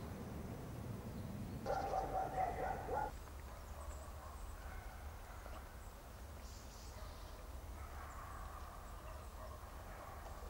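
An animal call, loud, rapid and pulsing, lasting about a second and a half, starting about two seconds in. A steady low rumble runs underneath.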